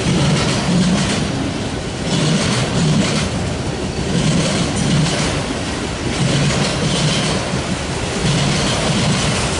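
Freight train of autorack cars rolling past: a steady rumble of steel wheels on rail with a regular clickety-clack, a bit more than one beat a second, as the wheel sets go by.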